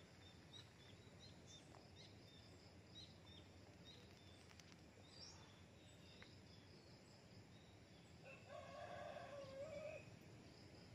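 Faint outdoor quiet with small high chirps repeating throughout; a little past eight seconds in, a distant rooster crows once, a held call of nearly two seconds that ends about ten seconds in.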